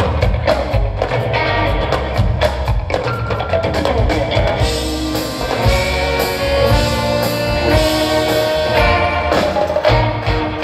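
Live band playing through the venue sound system: drum kit and percussion with guitar and bass. Fuller held notes join about four and a half seconds in.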